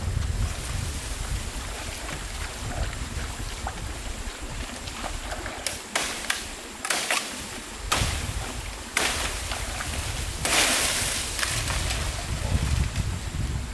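A blade chopping into a bamboo stem, several sharp strokes about six to nine seconds in, then a longer loud rustle of leaves as the cut bamboo comes down. Running stream water and a low wind rumble on the microphone underneath.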